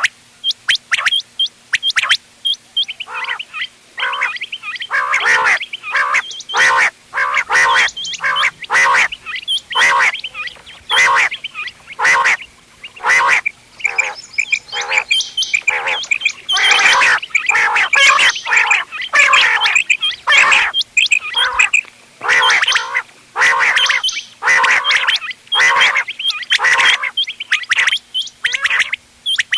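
Quail calling over and over, short sharp calls repeating about twice a second that thicken into overlapping calls from several birds through the middle and later part. A faint steady hum runs beneath.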